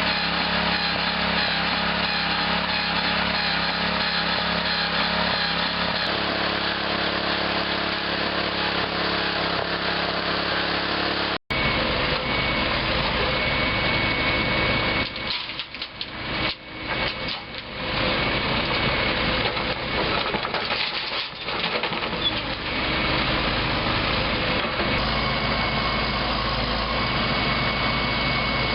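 Heavy construction equipment engines running steadily, with a sudden break about eleven seconds in; afterwards the engine noise continues, dipping in level several times.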